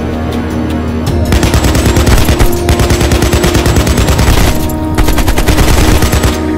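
Rapid automatic gunfire over dramatic background music. The gunfire starts about a second in, breaks off briefly past the middle, then resumes.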